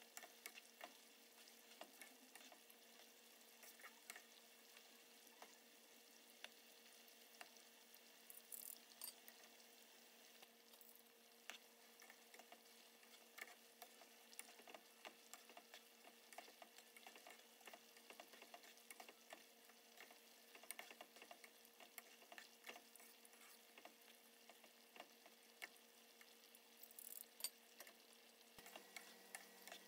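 Sliced pork deep-frying in a pot of vegetable oil: a faint steady sizzle with many small crackles and pops, while metal tongs stir and turn the meat. One louder click near the end.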